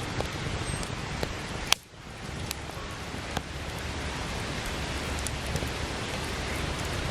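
Steady rushing outdoor noise with scattered small clicks and ticks. A sharp click about two seconds in is followed by a brief drop in the noise.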